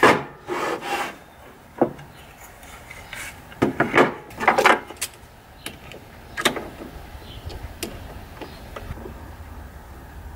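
Wooden jig pieces and bar clamps handled on a table saw's table: a string of separate wooden knocks and scrapes as the block is set in place and the clamps are slid and tightened onto it.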